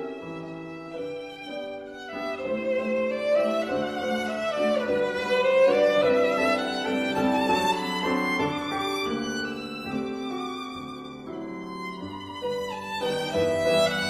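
Background music: a melody of held notes, some of them sliding in pitch, over accompaniment.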